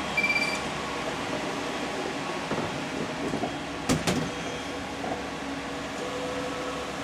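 Steady whir of a wide-format printer's cooling fans, with a short beep just after the start and two sharp clicks about four seconds in.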